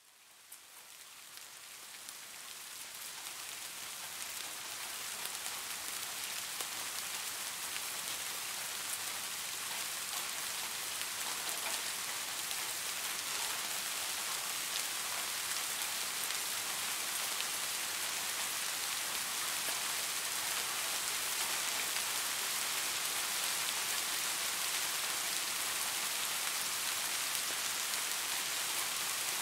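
Steady rain falling, a dense hiss with scattered drop ticks, fading in over the first several seconds and then holding steady.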